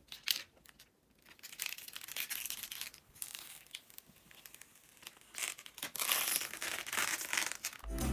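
Crinkling and rustling of packaging being handled, in uneven bursts, with a short click near the start.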